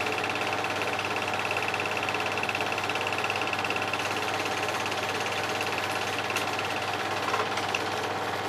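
Home-movie film projector running: a rapid, even mechanical clatter of the film transport with a steady high whine, and a few small clicks near the end.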